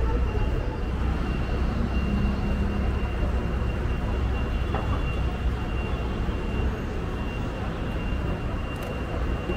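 Outdoor ambience: a steady low rumble under an even wash of background noise, with a thin steady high-pitched tone throughout.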